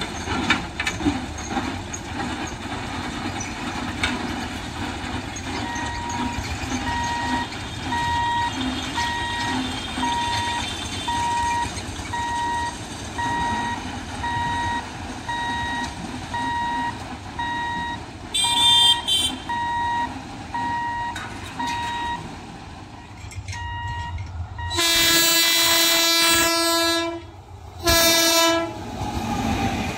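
Level-crossing warning signal beeping in an even on-off pattern for about sixteen seconds while the barrier lowers, with a short higher-pitched honk partway through. Then an Indian Railways electric locomotive sounds its horn as it approaches: a long, loud blast of about two seconds followed by a short one.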